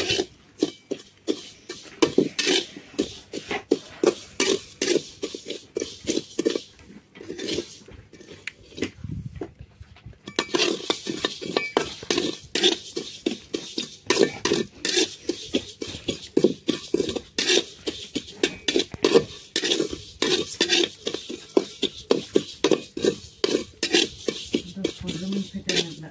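Metal spatula scraping and clinking against a kadhai, stirring cumin seeds as they dry-roast: quick repeated strokes, several a second, with a quieter lull about eight to ten seconds in.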